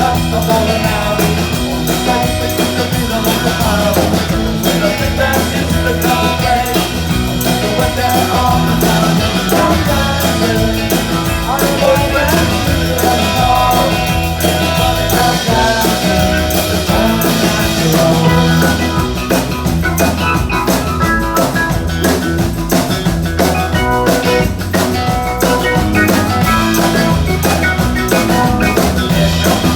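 Live band playing upbeat rock music with a steady drum-kit beat.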